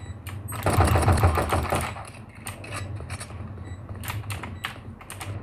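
Gaming keyboard keys and mouse clacking in quick, irregular taps, with a denser stretch of noise about a second in.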